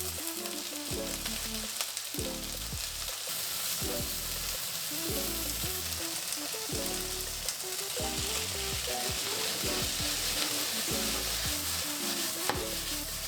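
Food sizzling steadily as it fries in oil in a pan.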